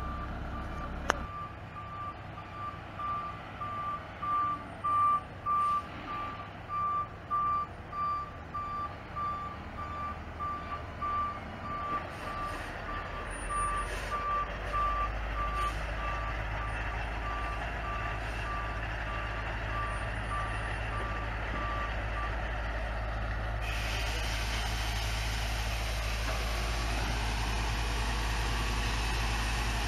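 Dump truck's reverse alarm beeping about once a second as it backs up, over heavy engines running. The beeping stops about two-thirds of the way through, leaving a low, steady engine sound.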